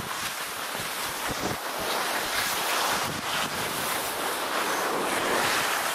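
Rushing wind on a body-worn camera's microphone and snow hissing as a skier tumbles and slides down the slope in a wipeout. The noise is steady and swells a little partway through.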